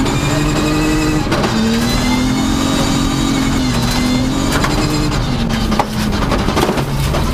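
Rally car engine heard from inside the cockpit under hard driving on a gravel stage, its pitch rising and falling several times as the driver changes gear and lifts, with a few sharp knocks along the way.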